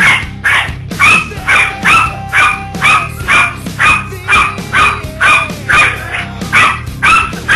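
Dog barking hard and fast, short evenly spaced barks about two a second, over music.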